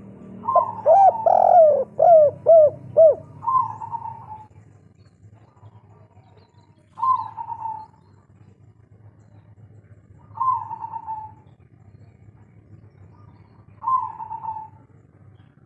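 Spotted dove (tekukur) cooing in the local 'kuk 3' song style: a quick phrase of about six coos in the first three seconds, then single coos about every three and a half seconds.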